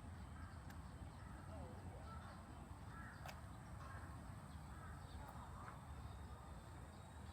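Faint crow calls, a few short harsh caws in the middle stretch, over quiet outdoor ambience with a low steady rumble.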